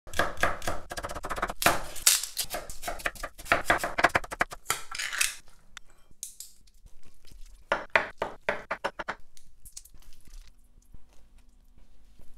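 Chef's knife chopping celery on a wooden cutting board in fast, even strokes for about five seconds, then another short run of chopping a couple of seconds later.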